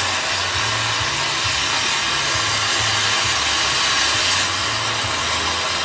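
A lit firework fountain spraying sparks, giving off a steady, loud hiss.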